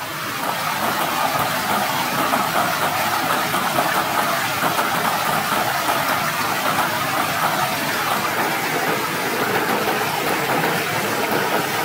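Steady rushing of a forest stream and small waterfall, an even noise without rhythm or pitch.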